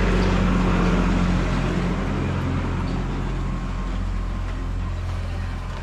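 A vehicle engine running steadily with a low, even hum that eases off a little over the last few seconds.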